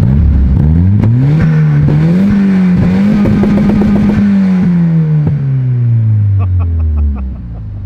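Car engine revving up, holding high for a couple of seconds, then winding down steadily until it drops away near the end, with a few sharp clicks along the way.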